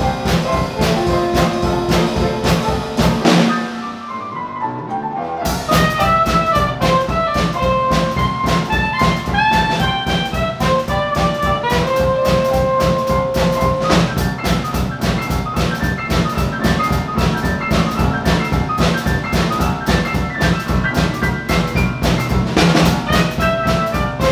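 A jazz trio of upright piano, soprano saxophone and drum kit playing a boogie-woogie with a steady beat. About three and a half seconds in, the drums and bass line drop out for about two seconds, then the full band comes back in.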